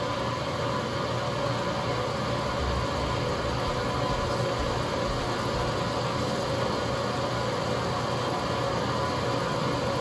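2007 Whirlpool top-load washing machine filling with water at the start of its permanent press cycle: a steady rush of water into the tub with a low hum.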